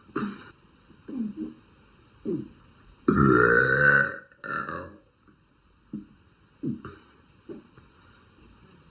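A girl burping: one long, loud burp about three seconds in, lasting about a second, then a shorter one right after it. Smaller short throat sounds come before and after.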